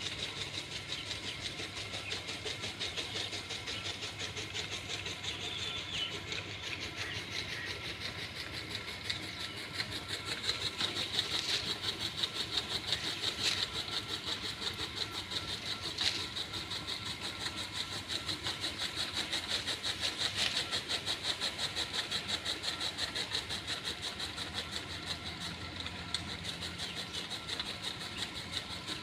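An engine or motor-driven machine running steadily with a fast, even pulse.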